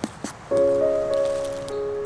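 Background music begins about half a second in with a sustained chord of held notes, after two light ticks.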